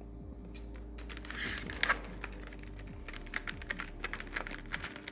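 Quick light clicks and taps, like keys being typed, sparse at first and then a dense run from about three seconds in, over a steady low electrical hum.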